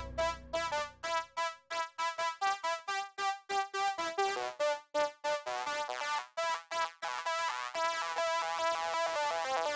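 Software synthesizer, the WaveStation plug-in, playing a melody from a toy keyboard converted to a USB MIDI controller. Quick separate notes with sharp starts come several a second, and in the second half some notes are held longer, with two sounding at once.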